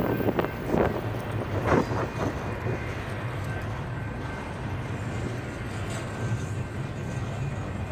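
Steel wheels of a passing double-stack intermodal train's well cars rolling on the rails with a steady rumble. A few sharper clanks come in the first two seconds.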